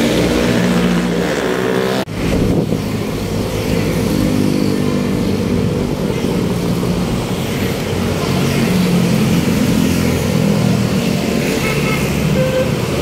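Heavy road traffic on a city boulevard: vehicle engines and tyres passing close by in a steady, loud stream, briefly cut off about two seconds in.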